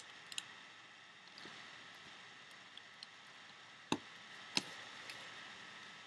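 Faint clicks and taps of hands and rubber bands working on a plastic loom. The two sharpest clicks come about four and four and a half seconds in.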